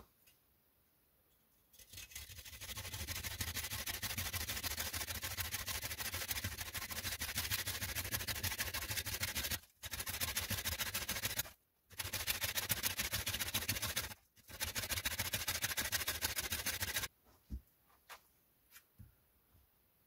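A bow saw cutting through a log in rapid back-and-forth strokes. The sawing starts about two seconds in, pauses briefly three times, and stops a few seconds before the end. A few faint small knocks follow.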